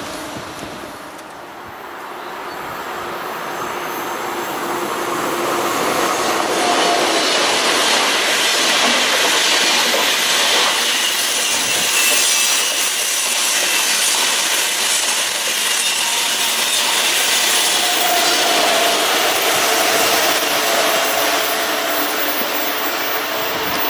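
A train approaching and passing by on the rails: the rush of wheels and cars builds over the first several seconds, then holds steady and loud as the long train rolls past.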